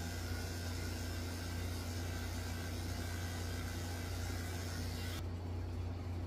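Electric dog-grooming clippers running with a steady buzz as they shave the tips of a dog's ears. The brighter hiss over the hum cuts off about five seconds in, leaving the low hum.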